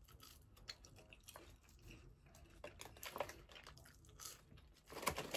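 Faint close-up chewing of food, with scattered soft mouth clicks.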